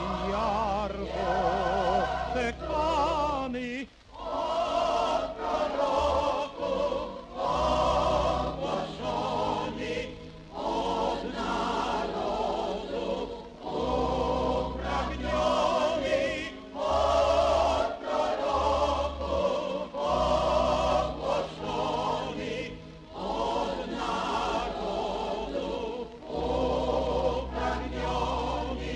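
Choir singing a Polish Christmas carol (kolęda) in phrases with vibrato, backed by an orchestra, played from a vinyl LP.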